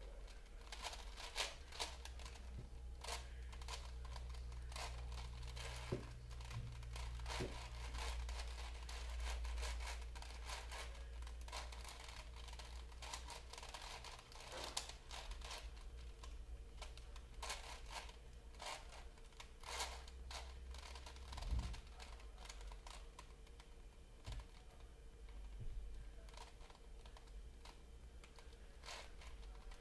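Plastic layers of a large Rubik's-style puzzle cube clicking and scraping as it is turned by hand, in irregular runs of quick turns with short pauses.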